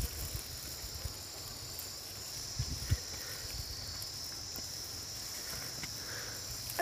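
Steady high-pitched chorus of insects, with a low rumble and a few soft knocks underneath.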